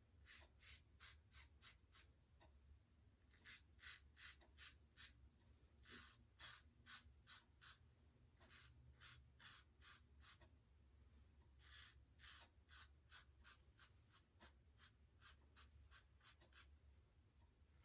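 Faint, short scraping strokes of a Rockwell 6S double-edge safety razor cutting coarse stubble against the grain, in quick runs of several strokes with brief pauses between runs.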